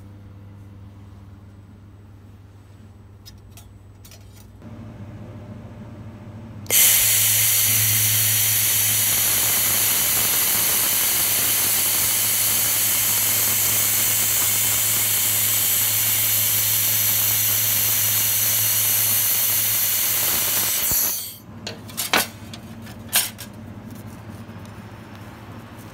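Handheld fiber laser welder welding brass sheet: a loud, steady hiss starts abruptly about seven seconds in, runs for about fourteen seconds and cuts off sharply. A low steady hum lies underneath throughout, and a few sharp clicks follow the weld near the end.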